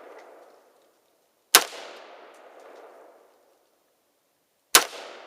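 Two gunshots about three seconds apart, each sharp crack followed by a long echoing decay.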